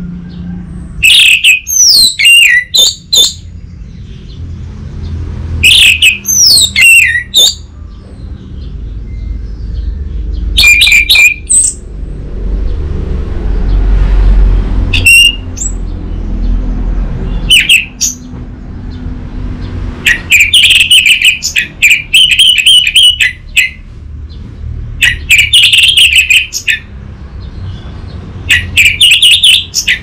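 Orange-headed thrush singing loud, varied phrases of whistles and quick notes, broken by pauses of a few seconds, with fast runs of repeated notes in the last third. A low rumble of background noise lies underneath.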